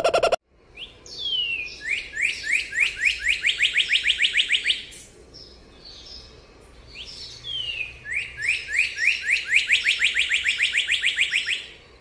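Northern cardinal singing two phrases, each a few falling slurred notes and then a quick run of rising whistled notes, about seven a second. A lower call with many overtones cuts off abruptly in the first half-second.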